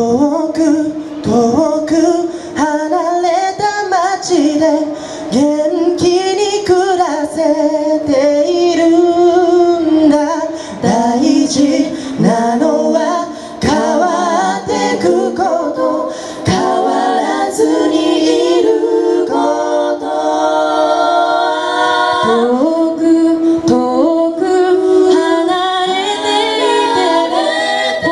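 A four-voice mixed a cappella group singing through the stage PA, with no vocal percussion or bass voice. A man's voice leads at first, and the other three voices fill in a close sustained harmony from about halfway through.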